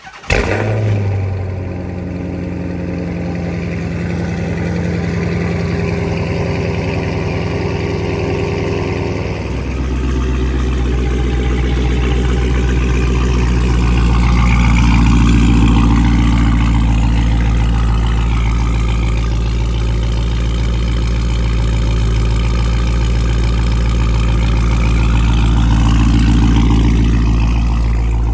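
Dodge Hellcat's supercharged 6.2-litre Hemi V8 starting with a loud flare and then idling through gutted catalytic converters. About ten seconds in the idle drops to a lower pitch and stays there.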